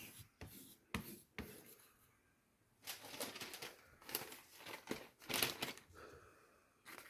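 A freshly sharpened Victorinox kitchen knife slicing through a sheet of paper to test the edge: several faint, papery slicing strokes, with a few small clicks of handling before them.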